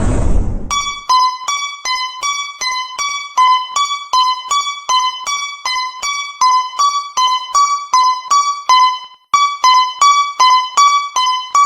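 Japanese railroad crossing alarm: an electronic bell ringing fast and evenly, alternating between two close pitches at about two and a half strikes a second, with a short break about nine seconds in. It starts under a second in, after a noisy whoosh fades out.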